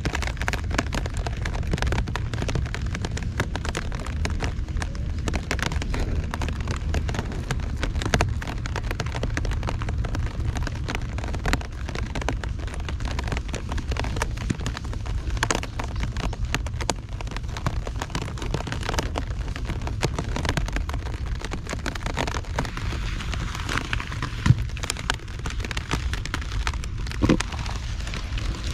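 Heavy rain from an approaching typhoon falling and pattering on nearby surfaces, with a steady low rumble underneath. A couple of sharper knocks come near the end.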